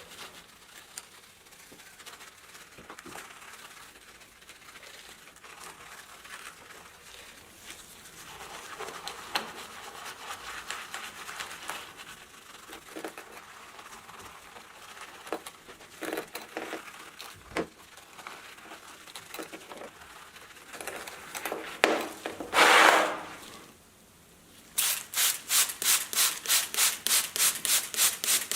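Rubbing and scraping of hand work on an antique calculator: scattered small clicks and scrapes, then one loud rasping rub, and near the end fast back-and-forth rubbing strokes, about four a second.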